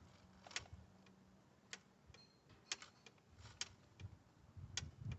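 A few sharp, scattered metal clicks, roughly a second apart, from a wrench tightening the CVT transmission drain plug to torque.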